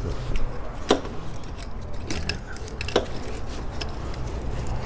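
Light clicks and knocks of parts and hand tools being handled on an engine, with two sharper clicks about a second in and about three seconds in, over a low steady hum.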